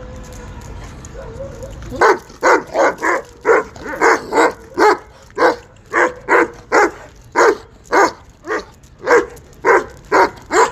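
Kohati Gultair dog barking repeatedly in a steady run of short, loud barks, about two to three a second, starting about two seconds in.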